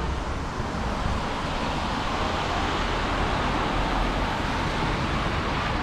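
Car tyres hissing on a wet road as traffic drives past, swelling through the middle as a car passes close by.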